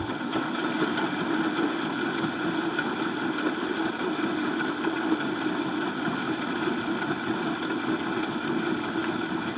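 Front-load washing machine running its drum-clean cycle: a steady mechanical whir from the motor and turning drum.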